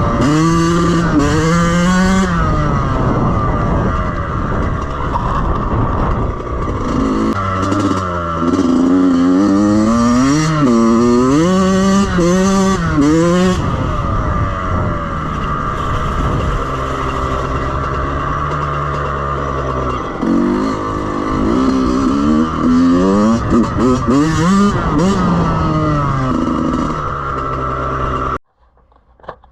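A 2014 Yamaha YZ85's two-stroke single-cylinder engine with an FMF Shorty exhaust, ridden hard: the revs rise and fall again and again, with a few steadier stretches. The sound cuts off suddenly near the end.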